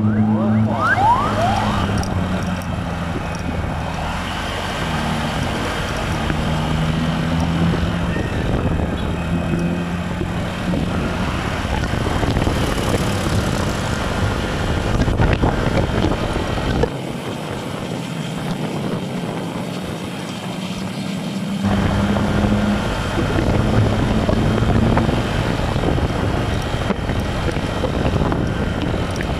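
Motorcycle engine running while riding, its pitch shifting up and down with engine speed, under steady wind noise on the phone's microphone. It drops quieter for a few seconds past the middle, then picks up again.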